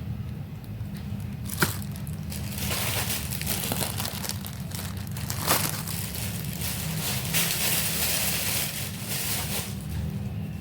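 Packaging being handled, crinkling and rustling on and off, with two sharp clicks, one about one and a half seconds in and one about five and a half seconds in, over a steady low hum.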